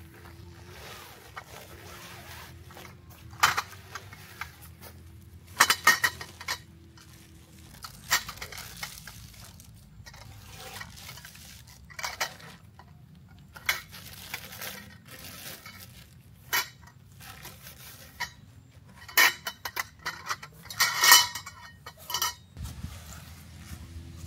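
Irregular clinks and clatters of hard objects being handled and set down, about a dozen separate knocks, the loudest near the end.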